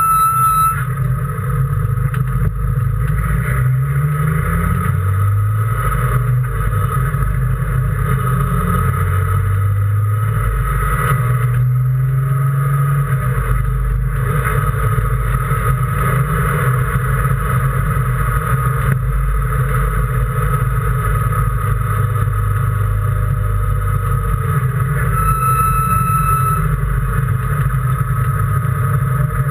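Race car engine running hard on a circuit, heard onboard: its pitch climbs and drops again and again as it revs up and shifts or lifts.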